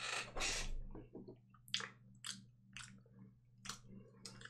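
A small candy package being opened by hand: a rustle in the first second, then about five short, crisp crackles spread over the next few seconds, with a low steady hum underneath.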